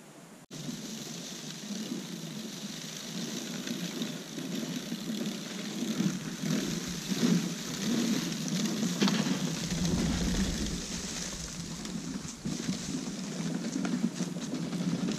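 Wheeled push broadcast spreader being pushed across a field, its wheels, gears and spinning plate rattling as it throws out lime. The sound grows louder as the spreader comes close, about midway through, then fades a little as it moves away.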